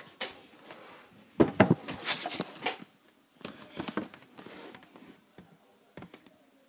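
Handling noise: irregular rustles, taps and clicks of paper and hands moving close to the microphone, loudest about a second and a half in.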